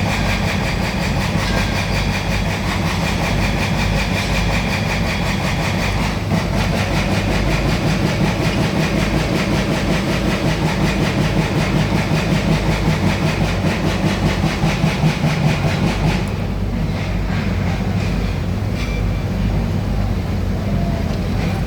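Small excavator's diesel engine running steadily, with a fast low pulsing beat. About three quarters of the way through, the higher-pitched part of the noise drops away while the engine carries on.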